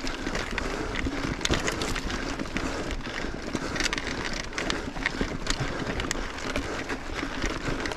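Mountain bike climbing a steep, rocky dirt trail: tyres crunching over grit and rock, with frequent sharp clicks and knocks.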